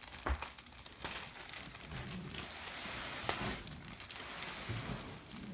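Wrapping paper and packaging crinkling and rustling as a child works a large plush toy free, with a few sharper crackles.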